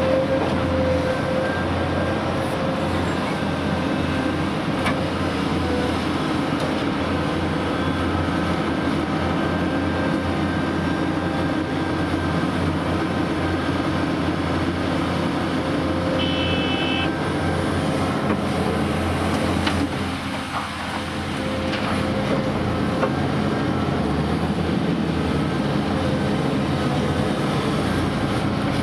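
Heavy diesel engines of a large mining excavator and an off-highway dump truck running steadily during loading, with a short high beep about sixteen seconds in.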